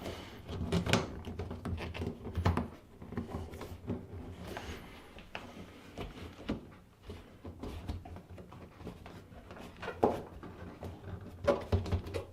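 Irregular knocks, clicks and rubbing of a front-loading washer's rubber door seal being pressed by hand into the metal groove around the door opening, with a few louder knocks scattered through.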